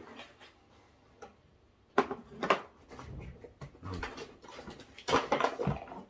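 A cardboard whisky gift box and its packaging being handled as the bottle is drawn out: two sharp clicks about two seconds in, soft rustling, and a cluster of knocks and rustles near the end.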